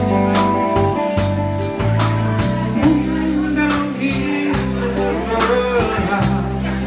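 Live blues band playing an instrumental passage: electric bass, a drum kit keeping a steady beat, and electric guitar with bent lead notes.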